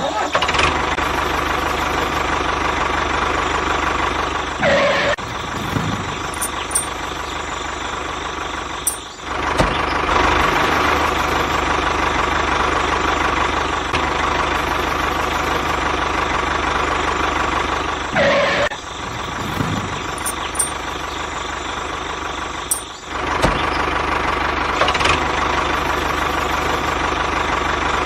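Small electric gear motor of a homemade mini construction machine running steadily with a whine, its sound dropping out briefly twice.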